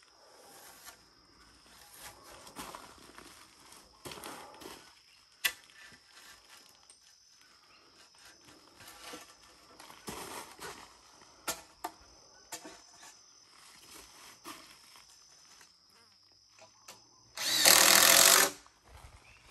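Scattered light knocks and taps of framing work, then near the end a handheld power drill runs for just over a second, the loudest sound.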